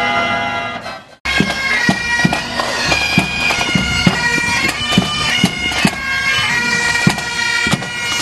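A pipe band playing a march: bagpipes sounding a melody over their steady drones, with a drum beating about twice a second. For the first second a band organ is playing, and it breaks off abruptly.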